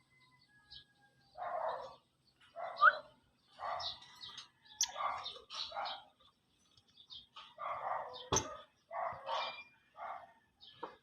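An animal giving short, harsh calls, about a dozen at irregular spacing, with a sharp knock about eight seconds in.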